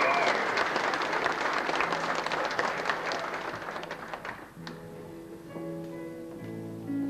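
Audience applauding, the clapping dying away about four and a half seconds in, over instrumental music that carries on.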